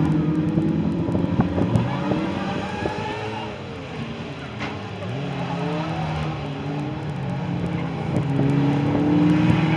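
Saloon stock car engines racing on track, their pitch rising and falling as the cars pass and change speed, quieter about halfway through and louder again near the end.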